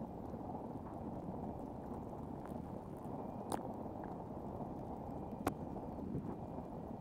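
Kayak being paddled: water splashing and lapping at the hull over a steady low rush, with two sharp clicks, one about halfway through and one about two seconds later.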